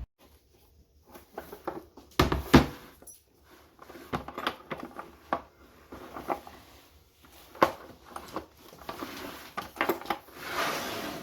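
Irregular clicks, taps and knocks of things being handled indoors, with a louder thump about two and a half seconds in and a short hiss near the end.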